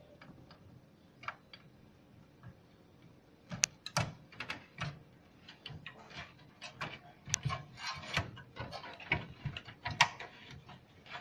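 Irregular clicks and light knocks of plastic and metal as cables are plugged in and handled inside a desktop PC case. A few scattered clicks at first, then a dense run of them from about three and a half seconds in.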